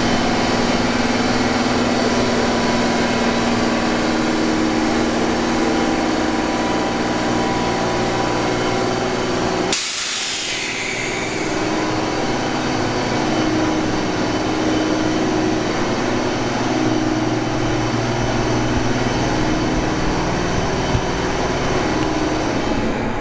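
A freight train passing slowly: an EF210 electric locomotive and a DD200 diesel locomotive in tow behind it, with steady machinery hum and wheel-and-rail noise. About ten seconds in, a sudden hiss breaks in and fades away over a second or two.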